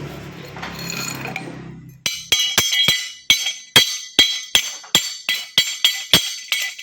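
A small hammer tapping on metal in a quick, even rhythm of about three ringing strikes a second, starting about two seconds in. Before that there is a steady rushing noise with a low hum.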